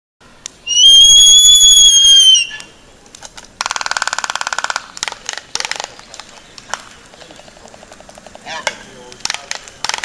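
A pair of Laysan albatrosses calling and clattering their bills in a courtship dance: one long, high whistling call near the start, then a fast rattling bill clatter around four seconds in, followed by scattered sharp bill clicks and softer rattles.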